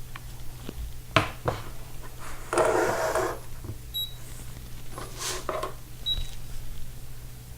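A digital scale being handled: a few light clicks and a brief rustle, then two short high beeps about two seconds apart as its buttons are pressed, over a steady low hum.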